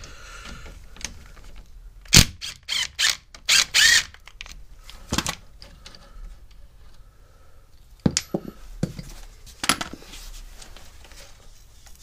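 Cordless ratchet and socket on the bolt of the air-conditioning pipe fitting on a condenser: a series of sharp clicks and knocks, with short runs of the tool around two to four seconds in and single knocks later.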